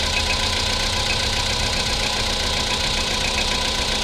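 Volkswagen Polo Sedan's 1.6-litre four-cylinder petrol engine idling, with a fast, even metallic ticking over the running: the engine knock the owner is complaining of.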